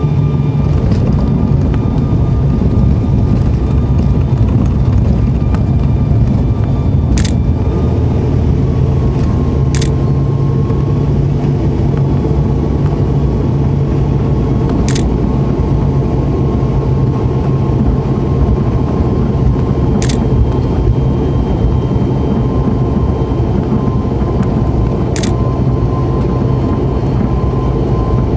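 Steady drone of an ATR 72-500's turboprop engines and propellers heard inside the cabin, with a faint click about every five seconds.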